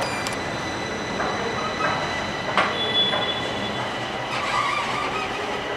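An elevator call button is pressed with a click and a short electronic beep, and a knock follows about two and a half seconds in. Under them runs a steady rumble and hiss from the rail station, with a train running and a brief high squeal.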